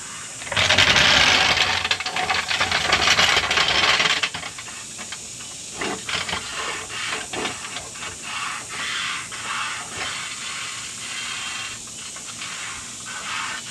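Steel floor jack rolled across a paved driveway, its wheels rattling loudly for about three and a half seconds. It is followed by quieter short clacks repeating about twice a second as the jack is worked under the truck with its handle.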